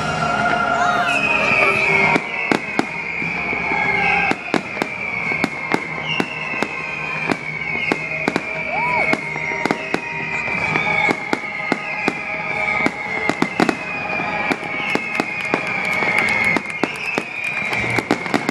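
Aerial fireworks going off in quick succession: many sharp bangs and crackles, one after another. Over them a high tone falls in pitch and repeats about once a second.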